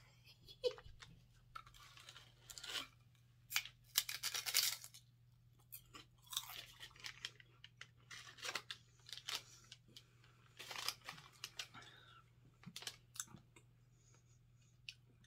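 A person chewing and crunching a crisp seaweed roll snack, in irregular bursts with pauses between bites.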